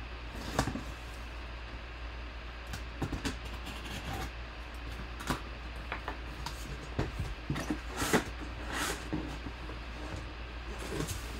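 Knife slitting the packing tape on a cardboard box, then the cardboard flaps being pulled open and the box handled: scattered scrapes, rubs and taps, with a few louder scraping strokes.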